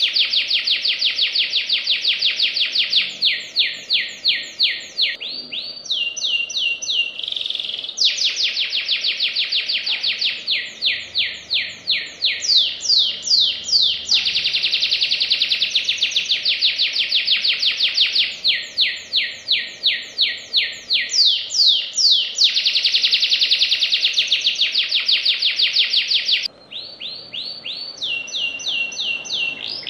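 Domestic canary in full song: long, very fast rolling trills alternating with phrases of slower notes that sweep downward, one after another with hardly a break. A softer, quieter phrase comes near the end.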